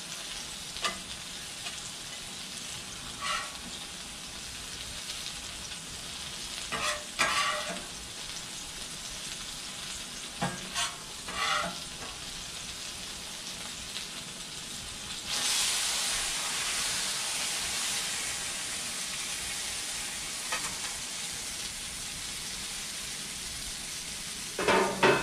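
Food sizzling in oil on a Blackstone steel flat-top griddle, with a metal spatula scraping and clacking on the griddle surface every few seconds. About 15 seconds in, the sizzle grows louder and stays that way, and a quick cluster of louder spatula clatters comes right at the end.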